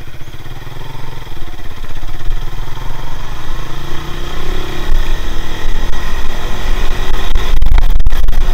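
Motorcycle engine pulling away and accelerating, its pitch rising a few seconds in, heard through an action camera's built-in microphone. A low rumble grows stronger as speed builds.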